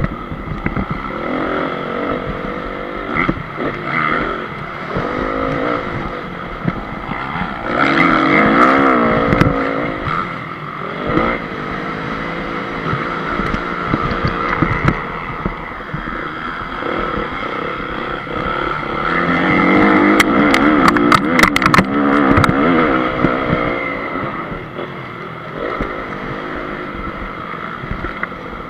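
A Honda CRF250's four-stroke single-cylinder engine, heard from on the bike while it is ridden on a dirt motocross track. It revs up and down with the throttle and gear changes, surging loudest about 8 seconds in and again about 20 seconds in, with a run of sharp clicks during the second surge.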